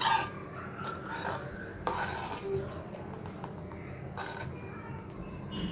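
A metal spoon scraping and stirring in a kadai through a thick, boiling orange jelly mixture of juice, sugar and cornflour, in several short irregular strokes.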